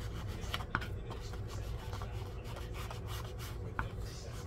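Paper being rubbed in irregular short scratchy strokes as ink is worked onto its edges, over a steady low hum.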